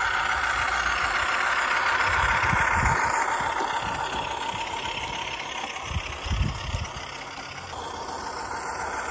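G-scale model Class 08 diesel shunter running with its train of trucks: a steady mechanical whine that sinks slightly in pitch over the first few seconds, with a light rattle. There are a few low thumps about six to seven seconds in.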